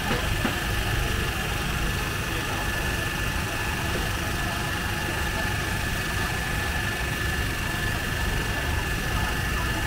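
Steady engine hum with a constant high-pitched whine over it, unchanging throughout.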